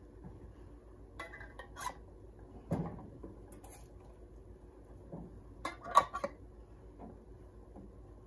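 Metal canning lids clinking as they are lifted with a magnetic lid wand and set onto the rims of glass jars. There are several light clicks, the loudest about six seconds in.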